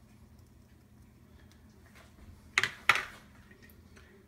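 Two sharp clinks of kitchenware, a third of a second apart, a little past halfway through, each with a short ring, over a faint steady hum.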